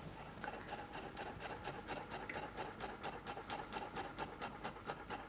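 Japanese chef's knife finely chopping garlic on a wooden chopping board: quick, even taps of the blade on the board, about five a second.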